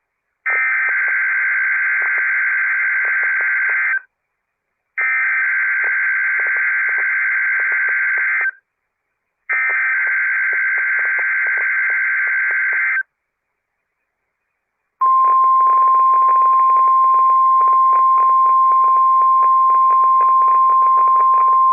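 NOAA Weather Radio Emergency Alert System tones. First come three bursts of SAME digital header data, a buzzy two-tone warble, each burst about three and a half seconds long with about a second of silence between them. After a two-second pause the steady 1050 Hz warning alarm tone starts and holds, with faint crackle from the radio feed underneath.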